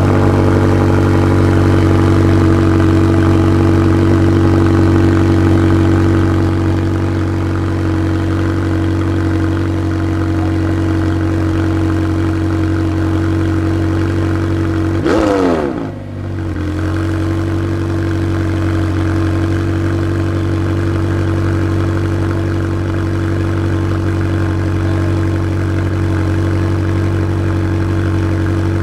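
McLaren 720S twin-turbocharged 4.0-litre V8 idling steadily just after start-up, a little quieter after about six seconds. About halfway through, the pitch briefly drops and the level dips before the steady idle resumes.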